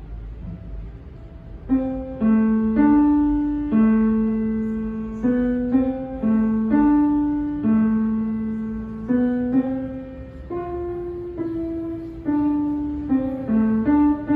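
Upright piano played by a child: a slow, simple melody of single notes, one after another, starting in earnest about two seconds in.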